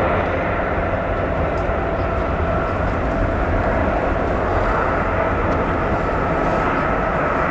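Boeing 777 freighter's twin turbofan engines running steadily as the jet rolls along the runway: a constant rumble with a steady two-tone whine.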